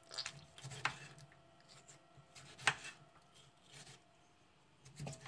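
Kitchen knife slicing a tomato and knocking on a wooden cutting board: a few separate knocks, the loudest a little before three seconds in.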